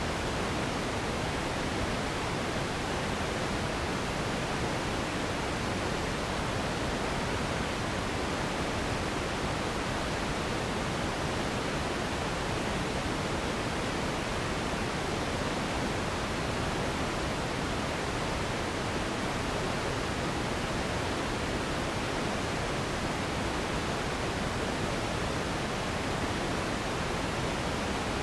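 Steady synthetic relaxation noise for sleep: an even, unchanging hiss, fuller in the lower and middle pitches and fading at the top, with no variation.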